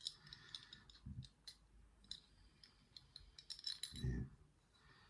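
Faint, scattered metallic clicks and light rattling of small lever-lock parts being worked free with a tool as the lock is stripped, with a soft low thump near the end.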